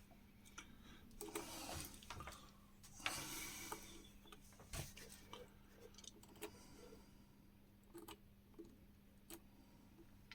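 Faint clicks and taps of hand work at a circuit board while a switch is soldered in, with two short bursts of hiss in the first four seconds and a steady low hum underneath.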